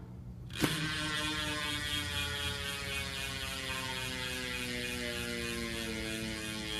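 DT Swiss 240 rear hub's Star Ratchet freehub buzzing as the hand-spun wheel coasts on its axle. It starts suddenly about half a second in, and its pitch slowly falls as the wheel loses speed.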